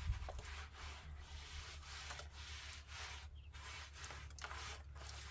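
Repeated short scraping or rubbing strokes, irregular and several a second, over a steady low hum.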